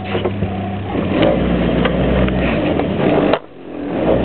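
Volkswagen Iltis 4x4 engine running as it drives along a rough dirt track, heard from on board, with scattered knocks and rattles. About three and a half seconds in the engine sound drops off sharply, then builds up again.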